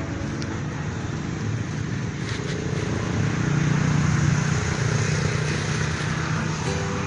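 A motor vehicle running past, a low rumble that swells to its loudest about four seconds in and then eases, over a steady hiss.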